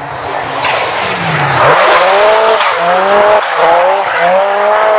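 Drift car sliding through a corner: loud tyre squeal under an engine revving in about four rising surges as the throttle is worked.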